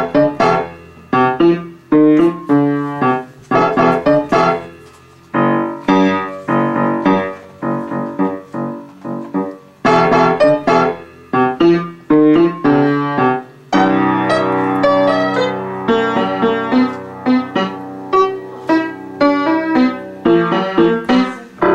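Upright piano played solo: phrases of chords and single notes that strike and fade, with short pauses between phrases, then a fuller passage with notes ringing on together in the last third, closing on a chord that dies away near the end.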